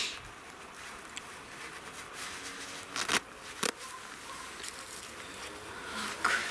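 Two short knocks about half a second apart, around three seconds in, as stones are set in place around a flower bed, over a steady faint outdoor background.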